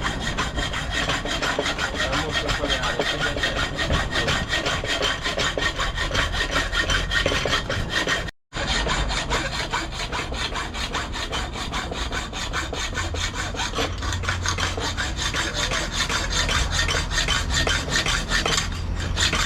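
Hand hacksaw cutting through a metal gearbox mount bracket, a steady rasping back-and-forth with even, rapid strokes, cutting out only briefly about eight seconds in.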